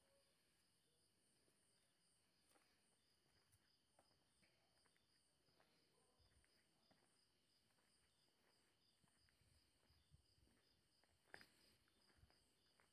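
Near silence, with faint crickets chirping steadily in a pulsing rhythm and one soft click near the end.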